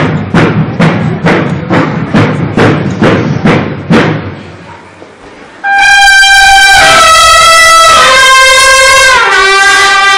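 Procession drums beaten at a steady two strokes a second, dying away about four seconds in. Then, near six seconds, clarines (valveless bugles) sound a loud call of four long held notes, each lower than the last.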